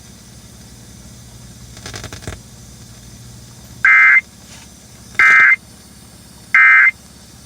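Emergency Alert System end-of-message signal: three short bursts of SAME digital data tones, a buzzy two-tone screech, about 1.3 seconds apart, marking the end of the warning broadcast. Before them, a few seconds of faint low hum, heard over a car radio.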